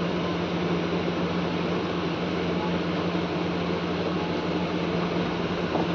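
A steady mechanical hum with a constant low drone and an even whir on top, unchanging throughout.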